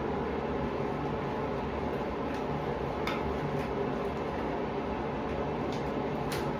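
Steady background hum of room noise, like a fan, with a few faint soft rustles about three seconds in and near the end as a sterile latex glove is worked onto the hand.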